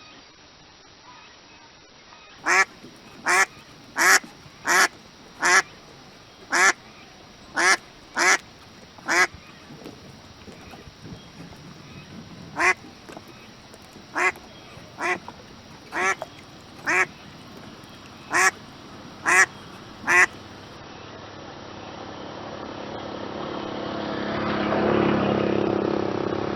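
A duck quacking loudly: a run of short, sharp quacks at irregular intervals, with a gap of a few seconds in the middle, ending about three-quarters of the way through. A broader noise then builds steadily louder near the end.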